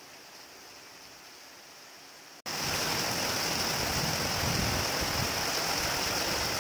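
Heavy rain pouring steadily onto trees, leaves and ground, a dense even hiss. A little over two seconds in it cuts abruptly to a louder, closer downpour.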